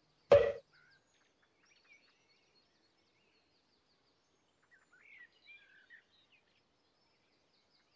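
Faint, scattered bird chirps, a few near the start and a cluster past the middle. Just after the start comes one brief, louder sound.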